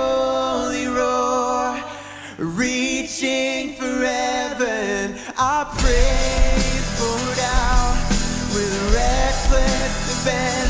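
Live worship band playing a song, with a man singing over guitars and keyboard. About halfway through, drums and bass come in and the music gets fuller.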